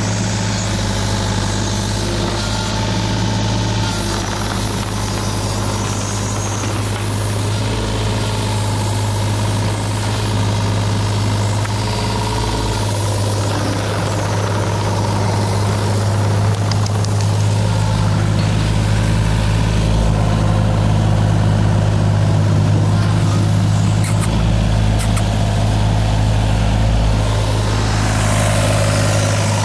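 An engine running steadily at a constant speed, a continuous low hum that does not rise or fall.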